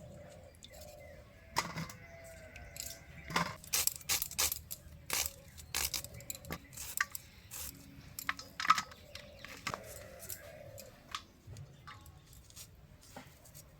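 Irregular sharp clicks and clinks of kitchen items being handled, densest in the middle.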